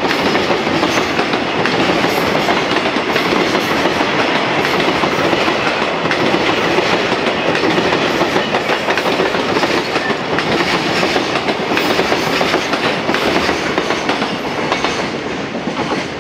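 Freight container wagons rolling past, a steady loud rumble of wheels with rapid clicking and clacking over the rail joints. The sound eases a little near the end as the last wagons go by.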